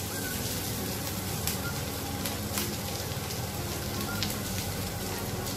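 Shrimp sizzling in oil on a hot sizzling plate: a steady frying hiss with a few sharp crackles.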